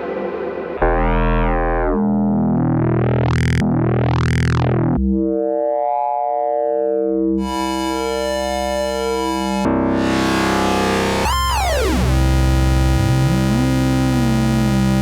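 Arturia MiniFreak synthesizer playing sustained notes and chords, its filter swept open and closed so the tone brightens and darkens in waves. The sound changes character every second or two, with a quick downward sweep about eleven seconds in and a low note gliding up and back down near the end.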